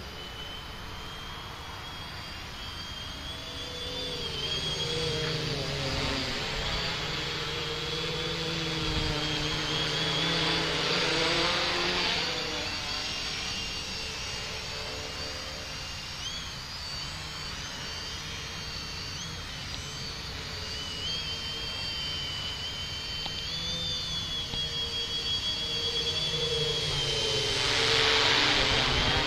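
Modded Hobbyking Talon V1 quadcopter's motors and propellers whining in flight, the pitch wavering as the throttle changes. It grows louder twice, about ten seconds in and again near the end, as the quad comes close overhead, its pitch gliding as it passes.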